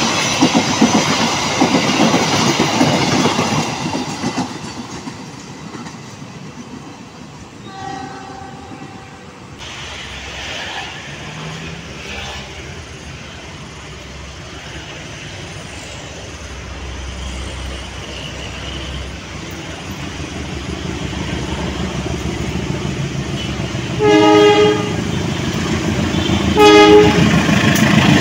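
Passenger train rolling past with its wheels clattering over the rails, fading away. Then an Indonesian CC 203 diesel locomotive approaches, its engine growing louder. It sounds its horn in two blasts near the end, a longer one and then a shorter one, with a faint horn heard once earlier.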